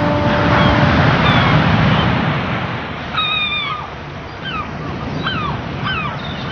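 Surf washing on a shore, with gulls calling over it: a longer call about three seconds in, then several short calls near the end. The last held notes of a song fade out at the start.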